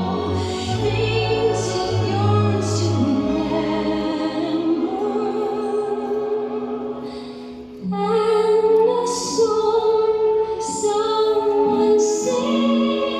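Classical-style music with a sung melody, the voice held on long notes with a wide vibrato. It dips briefly, then comes back louder with a new phrase about eight seconds in.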